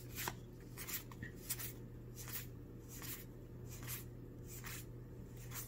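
Magic: The Gathering trading cards being slid one behind another while flipping through a booster pack. About eight soft, faint card swishes come at an even pace, a little more than one a second, over a low steady hum.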